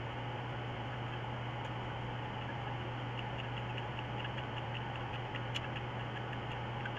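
Steady low hum with a hiss, with a run of faint quick ticks, about six a second, around the middle and a single sharper click near the end, as a small metal part is turned over in the fingers.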